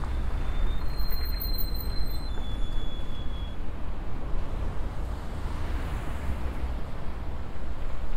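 Street traffic heard from a moving bicycle, with wind rumbling on the microphone. A thin high whine sounds briefly between about one and three and a half seconds in.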